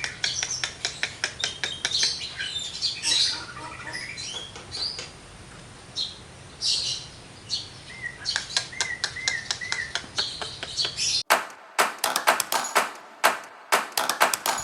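Javan myna singing in full, a fast mix of dry clicks, harsh chatter and whistled notes, with a short row of wavering whistles about eight seconds in. After a sudden break near the end the clicking goes on, sharper and louder.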